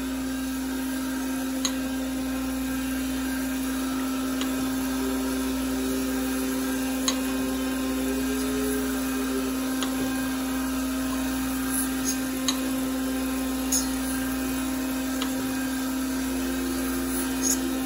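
DoAll automatic surface grinder running steadily with its power and traverse feeds on and coolant flowing, the wheel taking a light finish skim across a 1911 pistol frame: a constant motor hum with a few sharp clicks scattered through.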